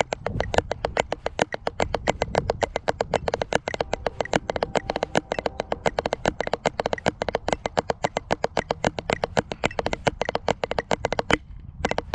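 Drumsticks playing a snare drumline exercise on a practice pad: rapid, even strokes at about eight a second, with a brief break shortly before the end.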